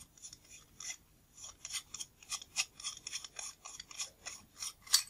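The tight metal threads of a Nikon Nikkor 35mm f/2 lens's front element being unscrewed by hand: a quick series of short scratchy scrapes, about three or four a second, with a sharper click near the end.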